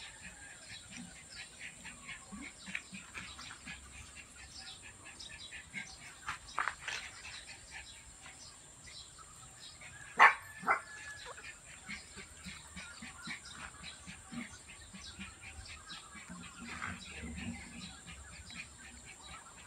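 Miniature Pinscher puppies whimpering and giving short cries while being held and dosed with liquid dewormer, with one sharp, loud yelp about halfway through. Small birds chirp around them.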